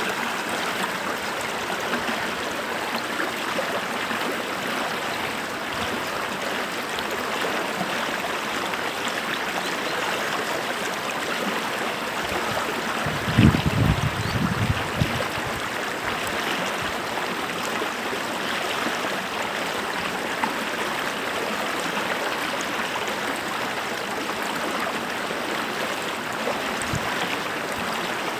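Stream water running steadily over rocks, with a short cluster of low thumps about halfway through.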